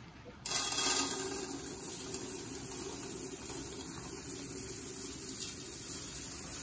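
Zote laundry soap flakes pouring from a cardboard box into an enamel pot: a steady, dry, rustling hiss that starts suddenly about half a second in.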